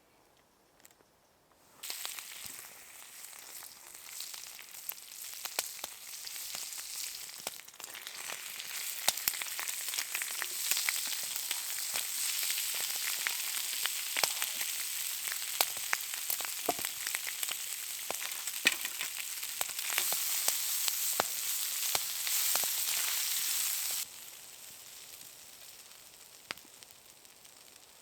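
Food frying in a carbon steel iron pan over a campfire: a hissing sizzle with many sharp pops of spattering fat. It starts suddenly about two seconds in, grows louder, and drops away suddenly near the end.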